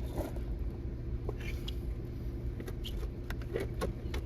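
Tractor engine idling steadily, with a scatter of light metal clicks and clinks from hand work with a wrench at the battery connection.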